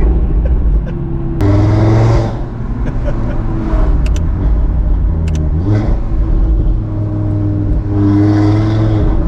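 Audi RS3's turbocharged 2.5-litre five-cylinder engine running under throttle, its note stepping up and down with throttle and gear changes. There are a few sharp cracks and a quick rising rev about halfway through.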